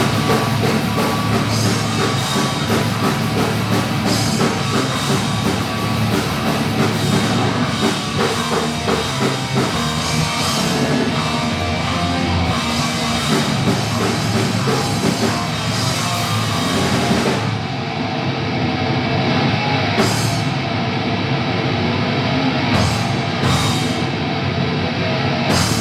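Thrash metal band playing loud at a sound check: drum kit with distorted electric guitars and bass. About seventeen seconds in, the cymbals drop out, coming back only as a few single crashes near the end.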